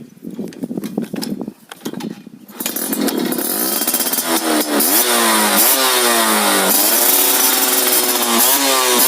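Yamaha F1ZR's two-stroke engine running through an aftermarket racing exhaust. It runs unevenly at idle, then from about two and a half seconds in it is revved hard several times, its pitch rising and falling with each rev.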